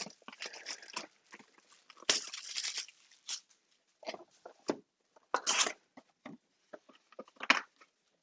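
A sealed trading-card hobby box being opened by hand: plastic shrink wrap tearing and crinkling, with scattered rustles and taps of cardboard. A longer tearing stretch comes about two seconds in, and a sharp click comes near the end.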